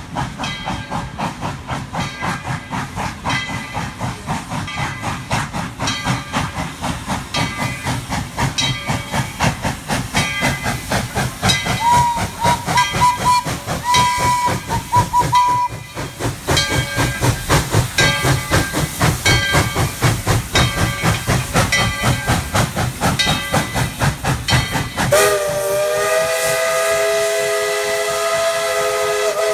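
Tweetsie Railroad No. 12, a narrow-gauge 4-6-0 steam locomotive, working under load with rhythmic exhaust chuffs and steam hiss. About 25 seconds in, it sounds a long chime-chord blast on its steam whistle.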